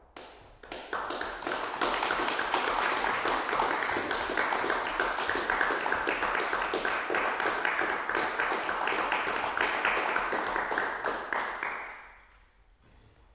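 Audience applauding, building up over the first two seconds and dying away near the end.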